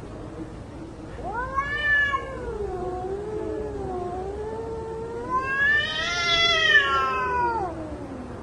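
Cats yowling at each other in a fight: long, wavering caterwauls that rise and fall in pitch. They begin about a second in and swell to their loudest near the end.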